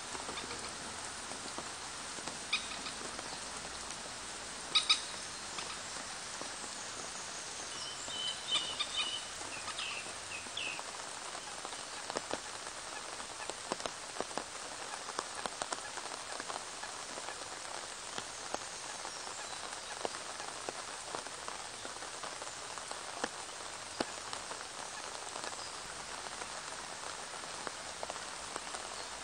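Steady rain falling on a pond's surface: a dense, even patter of drops with scattered sharper taps. About eight seconds in, a short run of high chirping calls sounds for a couple of seconds.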